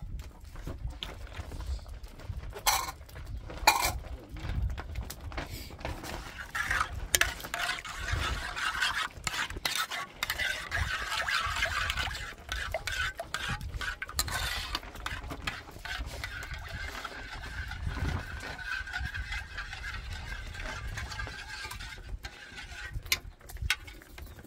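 A metal spoon stirring a thick yogurt-and-egg mixture in an aluminium pan, scraping and clinking against the pan's sides, with two sharp clinks a few seconds in.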